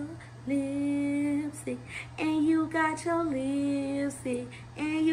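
A woman singing a short tune in long held notes, without clear words.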